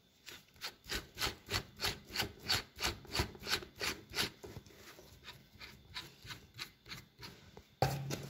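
Keyless chuck of an XU1 18V hammer drill being twisted by hand, making repeated rasping, ratcheting strokes about three a second. The strokes grow fainter after about four seconds, and a short louder burst comes near the end.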